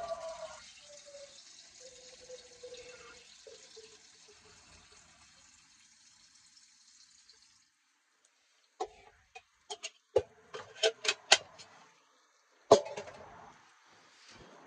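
Water running from a small sink tap for about seven seconds, then stopping. This is followed by a run of sharp clatters and knocks, with one loud knock a few seconds later.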